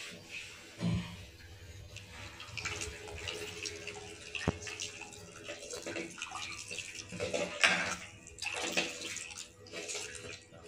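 A bare hand squeezing and mixing chopped onions and green chillies into tamarind water in a steel pot: irregular squelching and sloshing of liquid. A single sharp click comes about four and a half seconds in.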